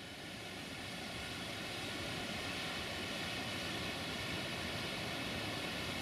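Steady rushing of a waterfall and river, a constant even wash of water noise that swells up over the first couple of seconds and then holds level.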